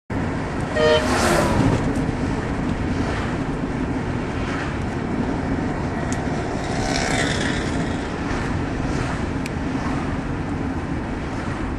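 Steady road and engine noise heard from inside the cabin of a moving car, with a short pitched sound about a second in followed by a falling sweep.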